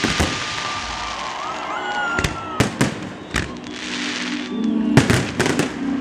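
Fireworks going off: sharp bangs of bursting shells, a few rising whistles and a hissing crackle in the middle, with music playing underneath from about halfway on.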